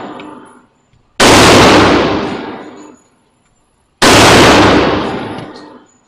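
Two loud gunshots about three seconds apart, each starting sharply and ringing out for about two seconds before dying away, following the fading tail of an earlier shot.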